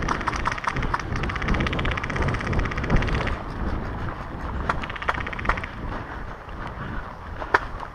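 HPA airsoft rifle firing full-auto: one long rapid burst of about three seconds, then a short burst about five seconds in, with a few single sharp clicks near the end. Wind and handling rumble on the helmet-mounted camera underneath.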